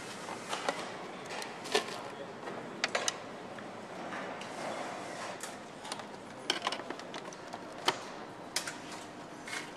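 Scattered sharp clicks and knocks of plastic motorcycle fairing panels being handled and fitted, over a steady hiss of factory background noise.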